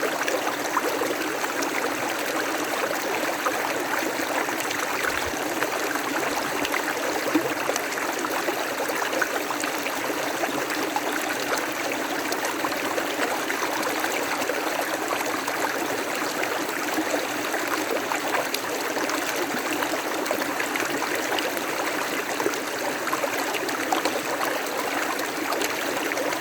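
River water running over rocks, a steady babbling rush with fine trickling detail.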